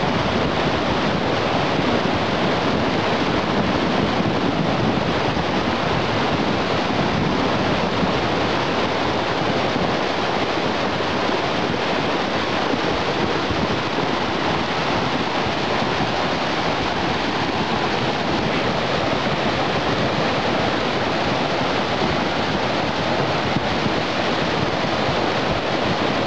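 Post-fire flash flood: dark, sediment-laden floodwater rushing steadily down a streambed.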